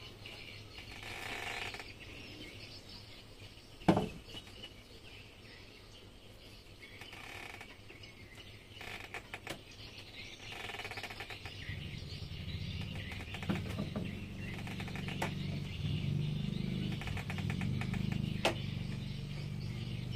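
Small metal clicks and a sharp knock about four seconds in as outboard gearbox parts and tools are handled, with birds chirping now and then in the background. A low steady drone starts about twelve seconds in and runs on.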